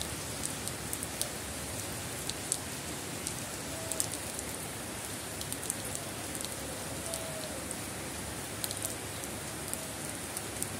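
Steady rain falling on a wet concrete path and garden plants, with scattered sharp drip ticks close by.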